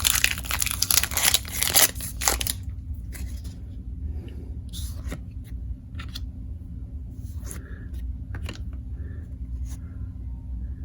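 Upper Deck hockey card pack wrapper being torn open and crinkled for the first two seconds or so, then quieter rustles and clicks of the cards being handled, over a steady low hum.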